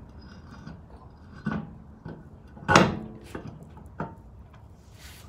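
A few knocks and thumps as a steel wheel with its tyre is handled and seated onto the hub studs, the loudest about halfway through with a brief metallic ring.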